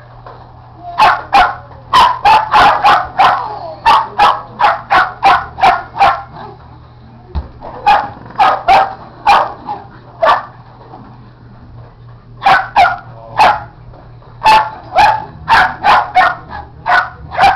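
Shetland sheepdog barking at the swinging tetherball, short sharp barks in quick runs, several a second, with a brief pause a little past the middle.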